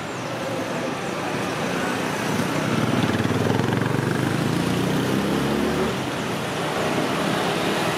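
Street traffic, with a motor vehicle's engine passing close by: it swells about two seconds in, is loudest around three to four seconds, and fades away about six seconds in.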